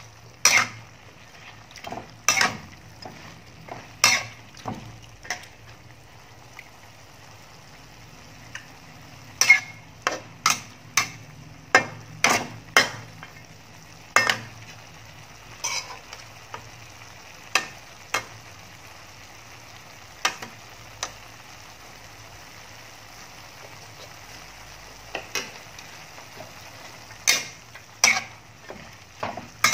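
Beef and sliced onions sizzling in a metal frying pan while a spatula stirs them, clacking and scraping against the pan in irregular clusters of sharp knocks. About two-thirds of the way through the knocks stop for a few seconds, leaving only the sizzle, then resume.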